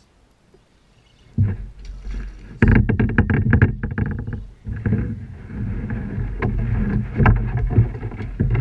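Water splashing and irregular knocks and clatter against a kayak, loud and uneven, starting about a second and a half in.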